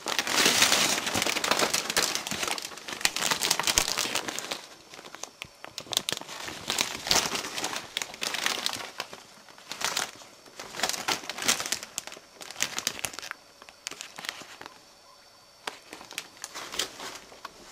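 Thin plastic sheeting of a large plastic bag crinkling and crackling as it is handled close to the microphone. It is loudest in the first few seconds, then comes and goes in irregular spells and grows fainter near the end.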